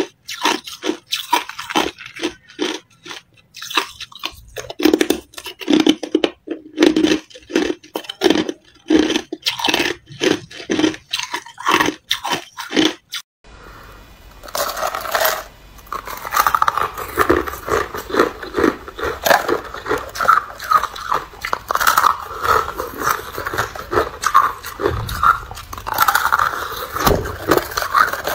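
Ice being bitten and crunched between the teeth, a fast run of crisp cracks. After a sudden change about halfway, a different recording with a low steady hum beneath carries on with crunching and scraping of thin, frozen-through ice.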